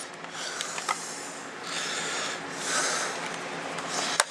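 Handling noise from a laptop's plastic case as it is closed up: scraping and rubbing of plastic for a second or two, with a few light clicks.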